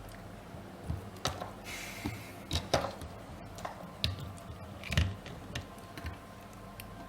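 Scattered sharp clicks and light knocks at irregular intervals over a low steady hum.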